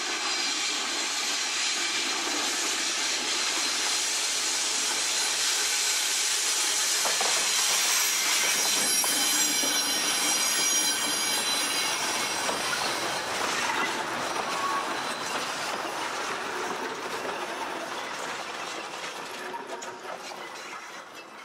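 Heritage passenger train rolling past on a curve: an Alco diesel locomotive and a string of carriages, wheels clattering over the rail joints with high-pitched wheel squeal strongest midway. The sound fades near the end as the last of the train goes by.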